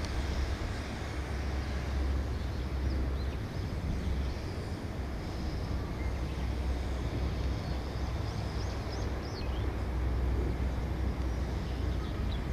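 Distant shipyard and harbour ambience: a steady low rumble with an even hiss over it, and a few faint short high chirps about three seconds in and again past the middle.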